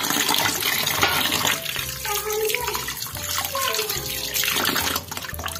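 Water pouring and splashing into a stainless steel bowl of raw rice as the rice is washed.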